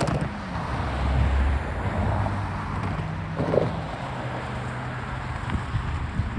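Intermodal freight train rolling past, a steady low rumble and wheel-on-rail noise with a low hum running under it and a brief louder clatter about three and a half seconds in.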